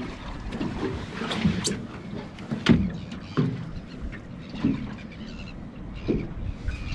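Irregular water splashes and slaps around a small boat, half a dozen in all, the loudest a little under three seconds in.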